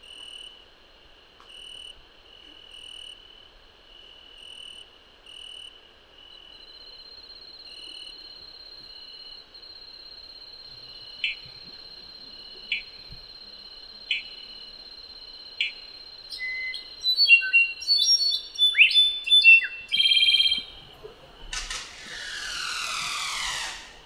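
Cloud-forest animal sounds. First come short chirps repeating about once a second over a steady high insect tone. Then a bromeliad tree frog gives four sharp, short calls about a second and a half apart, followed by a cluster of varied chirps and whistles. Near the end comes the loudest sound, a highland guan's whirring wing rattle of about two and a half seconds.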